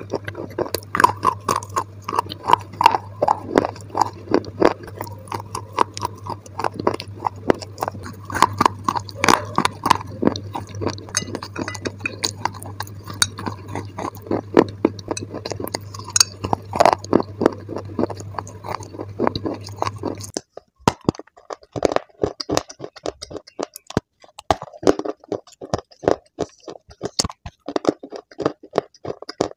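Close-up crunching and chewing of dry, hard clay sticks: a dense run of sharp, crisp cracks as the clay is bitten and ground between the teeth. A steady low hum sits under the crunching and stops abruptly about two-thirds of the way through, where the crunching continues on pieces of pink and grey clay.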